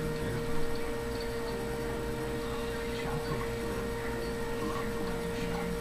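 Steady room hum with one constant mid-pitched tone held throughout, and no speech.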